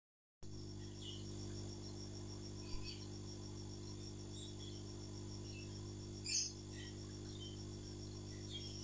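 Steady low electrical hum of aquarium equipment, with a regular high-pitched pulsing about five times a second. Faint scattered high ticks run through it, and there is one brief louder crackle about six seconds in.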